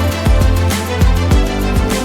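Background music with a steady beat and sustained instrumental chords.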